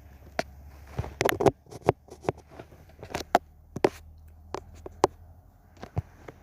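Fingertip taps and clicks on a tablet, irregular, roughly two a second, over a faint low hum.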